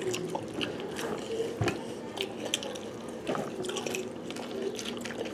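Cereal being eaten from bowls of milk: scattered light clicks of spoons against the bowls, with wet slurping and dripping of milk.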